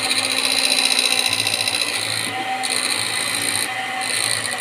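Electric hand mixer running steadily, its beaters whisking an egg and sugar batter in a bowl, with two brief dips in the whir.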